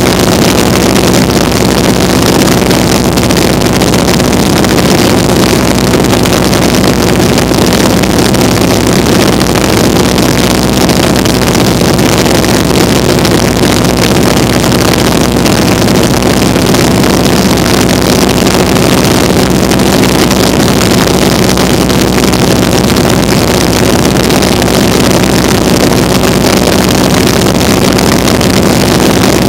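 Vintage open-cockpit biplane's radial engine and propeller running steadily in cruise, a constant drone with wind rushing and buffeting over the open cockpit.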